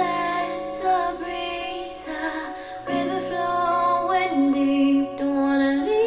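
Pop song with a female singer and sustained synth chords, played through a pair of DIY transmission-line speakers with 4-inch full-range titanium drivers and picked up by a microphone in the room.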